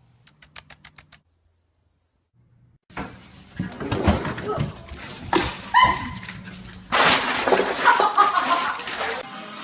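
A dog barking and yelping loudly, with short high cries among the barks. A quick run of clicks comes first, then a pause.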